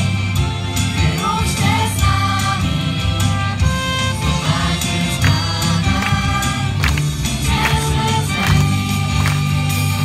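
Church choir singing a Christian song with a live band, amplified through stage loudspeakers: many voices over a strong bass line and regular drum hits.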